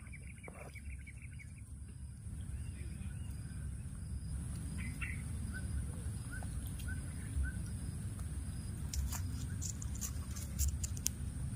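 Faint high chirping calls over a steady low rumble: a quick run of chirps at the start, then about five short, evenly spaced calls midway. A few sharp crackles come near the end.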